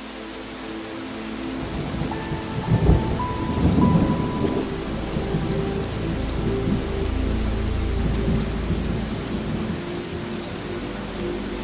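Steady rain falling, with a roll of thunder that builds about two seconds in, is loudest around three to four seconds, then rumbles on.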